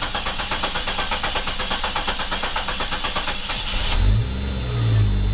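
1996 Jeep Cherokee engine cranking over on the starter in an even rhythm for about four seconds, then catching, revving up briefly twice and settling into idle: the first start after a fuel tank replacement, the fuel pump having been primed beforehand.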